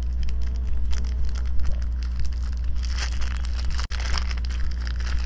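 Packaging of a two-wheeler ball-racer (steering bearing) set crinkling and tearing as it is opened and the parts handled, with many small scattered clicks, over a steady low hum. The sound drops out for an instant about four seconds in.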